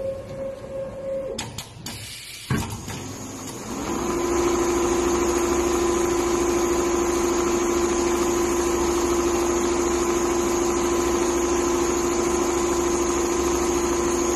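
Four-head computerized leather quilting sewing machine: a few clicks and a short tone, then about four seconds in the machine speeds up and runs steadily, sewing with a constant whine.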